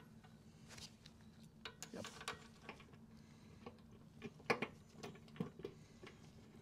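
Faint scattered clicks and light metal taps of hands threading and fitting bolts on a motorcycle's front fork and fender, with the loudest knock about four and a half seconds in.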